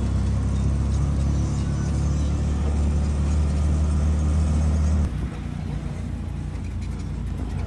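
Auto-rickshaw riding along a road, a steady low rumble of the vehicle and road heard from inside the cab. About five seconds in it drops suddenly to a quieter ride noise.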